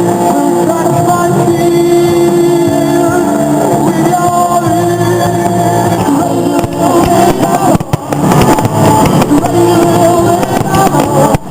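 Loud rock music with singing and held notes. From about six and a half seconds in, a run of sharp crackles and bangs cuts across the music.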